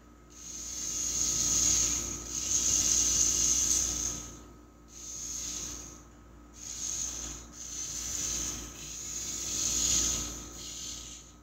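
Small electric gear motors of a remote-controlled toy tracked robot kit whirring in spurts, starting and stopping about four times as the claw arm and tracks are driven.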